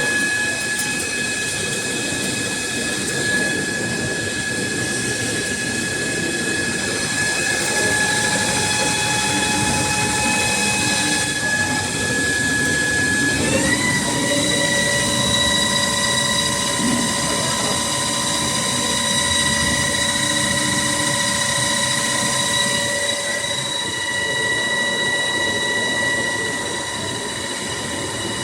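ZMM LS600M cycle-controlled lathe running an automatic turning cycle: a steady whine of several tones from the spindle drive over a noisy rush. The whine steps up a little in pitch about halfway through, as the spindle speed changes.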